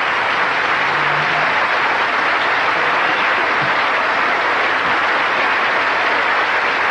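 A large audience applauding, a steady, dense ovation.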